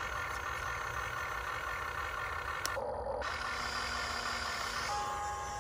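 Electric motors and gearboxes of a Huina 1592 remote-control excavator whining steadily as the arm and bucket dig into packed sand, with a short break about halfway and a change of tone near the end.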